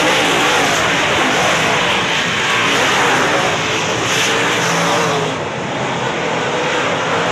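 A pack of UMP dirt modified race cars running at racing speed, their V8 engines loud and overlapping. The sound dips briefly about five and a half seconds in, then picks back up.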